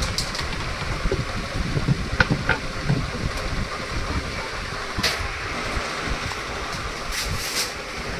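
Washing machine running with a steady low rumble, with a few light clicks and knocks.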